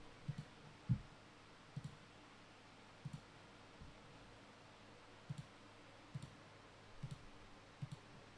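Light clicks over quiet room tone, about one a second, most of them a quick double knock.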